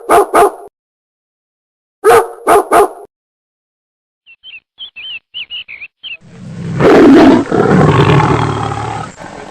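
A run of animal calls: two sets of three short quick cries, then a string of high chirps, then a loud roar lasting a couple of seconds.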